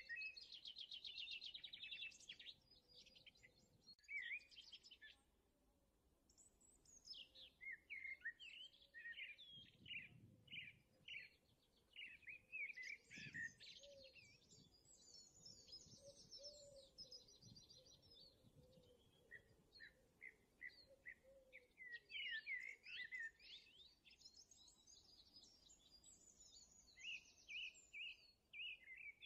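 Faint chirping of small songbirds: rapid twittering phrases repeated with short pauses between them.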